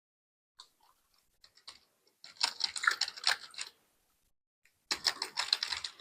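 Computer keyboard typing: a few scattered key clicks, then a quick run of keystrokes about two seconds in and another near the end.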